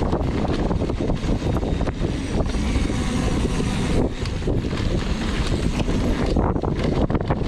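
Wind buffeting the microphone over the rumble and rattle of a downhill mountain bike running fast over rough trail, with many small knocks throughout.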